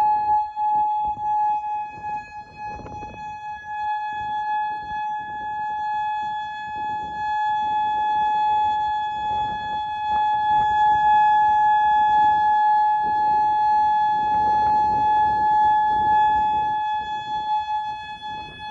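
Outdoor tornado warning siren sounding one steady tone, heard loud from right beneath it.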